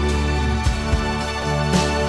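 Background music: sustained chords with a few soft low drum hits.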